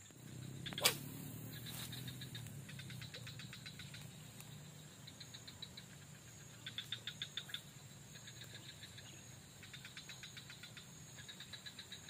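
A fishing lure lands on the water with a single sharp plop about a second in. Faint trains of fast, even insect chirps follow in repeated spells.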